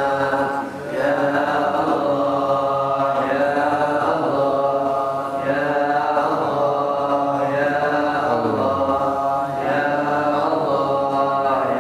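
A solo male voice chanting an Islamic devotional melody through a microphone. The notes are long and gliding, sung in phrases with short breaths between them.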